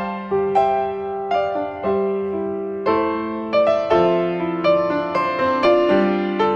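Background piano music: a slow, gentle melody of separate struck notes, each fading before the next.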